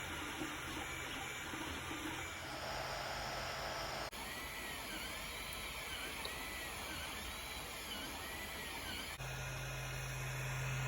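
A 3D printer running, its stepper motors whining in rising-and-falling sweeps about once a second over a steady hiss. The sound changes abruptly twice, ending in a steady low hum.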